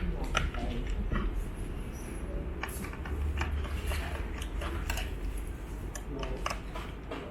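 Irregular small clicks and taps of hands working on the computer's parts, over a steady low hum.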